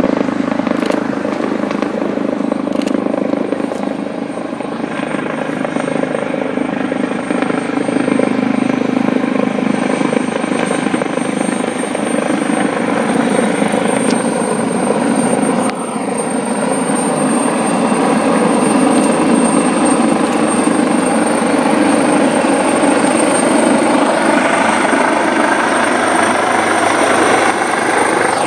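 AgustaWestland AW139 twin-turbine helicopter running close by: loud, steady rotor and engine noise with a thin, steady high-pitched turbine whine above it.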